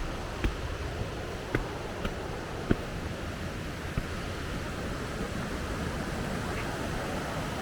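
Mountain stream rushing steadily, running high after overnight rain, with several sharp taps about a second apart in the first half.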